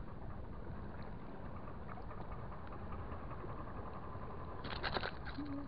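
Steady wind and sea noise on the microphone. Near the end comes a brief cluster of close clicks and crackles as the fishing line and tackle are handled.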